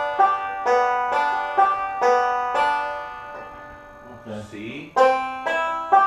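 Banjo picked slowly, one note at a time, at about two notes a second in a practice roll pattern, each note ringing out. The picking thins out and fades for a moment near the middle, then resumes louder about five seconds in.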